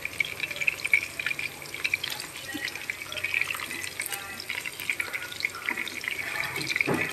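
Fish steaks frying in hot oil in a pan, a steady sizzle with scattered crackles and pops.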